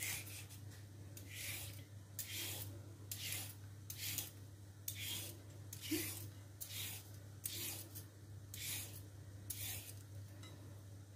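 A metal vegetable peeler scraping down a raw carrot, taking off strips of peel in repeated strokes, a little more than one stroke a second.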